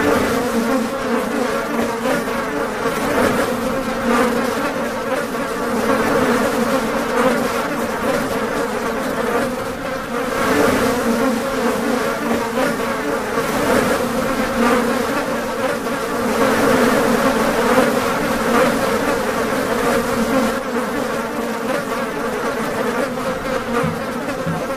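Buzzing of many flying insects close around the microphone: a continuous drone that swells and eases slightly without a break.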